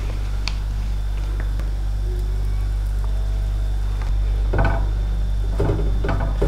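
A steady low hum, joined about two-thirds of the way in by a few short scrapes and taps of a slotted spatula against a nonstick frying pan as a tortilla is folded over.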